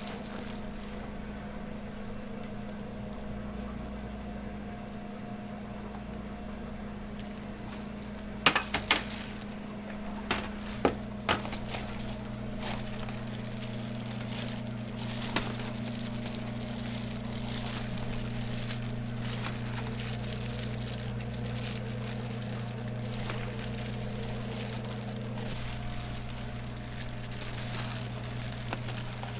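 Steady electric hum of café kitchen equipment, a second, lower hum joining about ten seconds in. A few sharp clicks and knocks come about eight to eleven seconds in and once more near fifteen seconds, from plastic containers handled on a steel counter.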